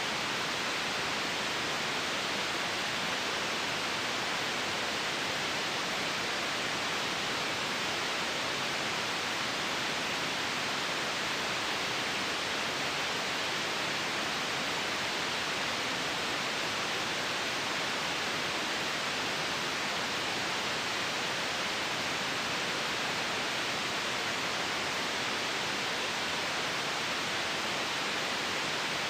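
Steady white noise: an even, unchanging hiss with no breaks or events, brightest in the upper middle range.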